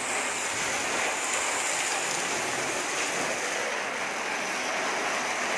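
Fire hose spraying water onto a burning house: a steady rushing hiss.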